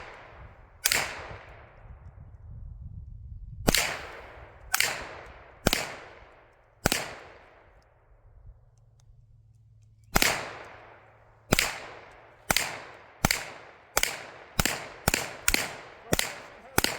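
Single gunshots: five spaced shots over the first seven seconds, a pause of about three seconds, then ten quicker shots that speed up toward the end, each trailing off in an echo.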